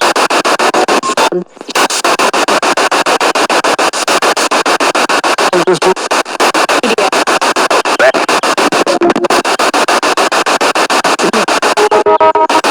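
Spirit box sweeping through radio stations: loud static chopped into rapid, even pulses, with a short dropout about a second and a half in and a brief snatch of a tuned-in tone near the end.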